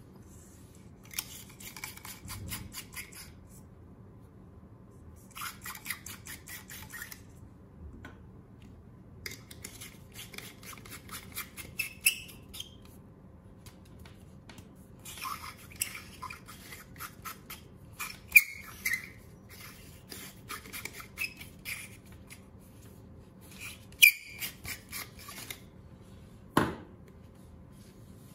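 Plastic LED bulb parts twisted and worked in the hands: bursts of rapid plastic clicking and creaking, a few seconds at a time, with a single knock near the end.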